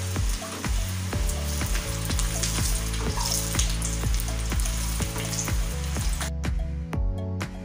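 Chin chin dough pieces deep-frying in hot oil, sizzling steadily as they are stirred, over background music with a steady beat. The sizzling cuts off about six seconds in, leaving only the music.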